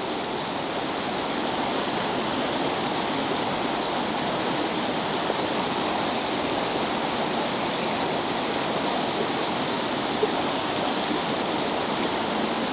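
River water rushing over rocks and a waterfall, a steady, even rush.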